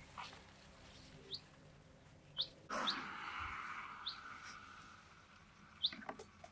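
Bird chirping: short, quick rising chirps, roughly one a second. A sudden burst of noise comes near the middle and fades over about two seconds.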